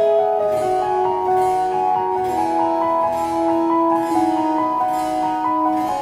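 Background music: sustained melodic notes moving in steps over a soft, steady beat.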